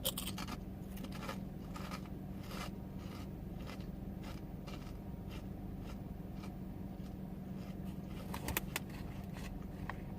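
Close-miked chewing of crunchy chips: short crunches about every half second that thin out midway, then a few sharper clicks near the end. A steady low hum runs underneath.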